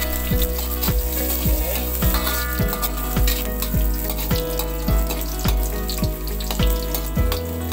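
Background music with a steady beat over shallots and garlic sizzling as they fry in hot oil.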